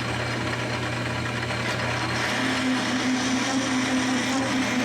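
Metal lathe running with a threading tool cutting a left-hand thread on a long riser shaft during the last pass. About two seconds in a steady higher tone and more cutting noise come in as the tool chatters a little on one section, which the machinist puts down to the shaft flexing.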